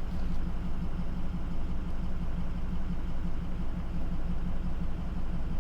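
Ford 6.0 Powerstroke V8 turbo-diesel idling steadily with an even low pulse, no revving.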